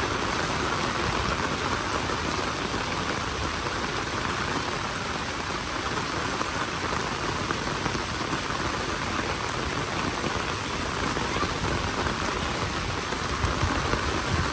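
Steady rain falling and pattering on surfaces.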